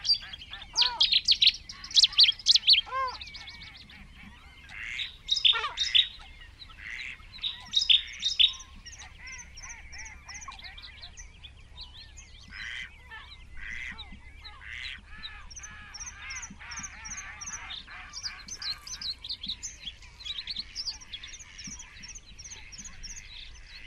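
Wild birds calling: loud honking calls from geese in the first eight seconds or so, then small songbirds chirping and singing steadily with repeated short high notes.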